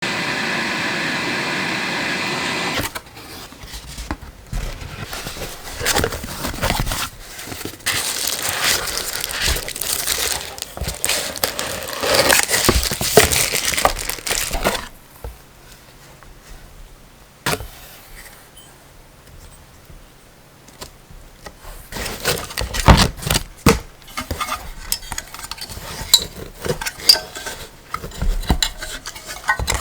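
A short steady tone at the very start, then objects being handled: rustling and crinkling with sharp clicks and knocks at irregular moments, quieter for a while in the middle.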